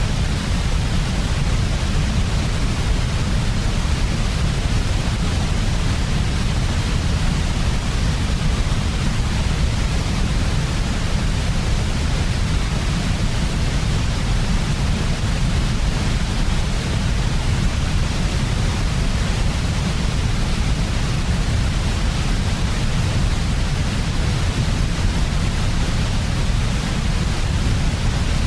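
Continuous white noise for sleep: a steady, unchanging hiss with a heavy deep rumble underneath.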